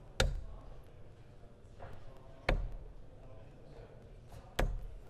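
Three darts thudding into a Winmau Blade 6 bristle dartboard, each a sharp single impact, about two seconds apart.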